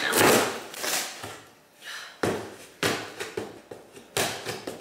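Long-handled gardening shears cutting and scraping into a cardboard shipping box: several short, crunchy strokes with gaps between them.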